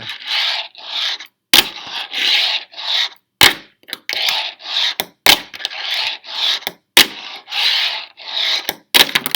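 Wooden fingerboard riding on its large wheels: a short rolling rasp about twice a second as it is pushed back and forth, broken about every two seconds by a sharp wooden clack as the board pops and lands a trick.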